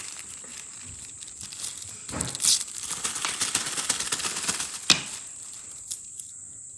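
Plastic packaging bag being opened and handled, crinkling and crackling, with a louder rustle about two seconds in and a sharp click about five seconds in.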